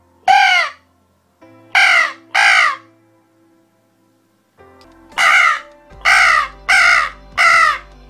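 Hand-held mouth-blown Fenland crow caller sounding caws that imitate a crow: one caw, then a quick pair, then a run of four from about five seconds in, each caw dropping in pitch.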